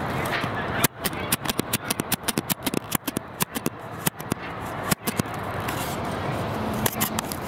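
A rapid, irregular run of sharp clicks and knocks, several a second, over a steady background noise; the clicks start about a second in and thin out after about five seconds.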